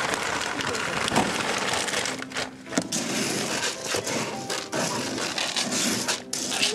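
Crumbled pellet cat litter crunching and crackling as it is dug through and shifted, a dense run of small gritty clicks and scrapes.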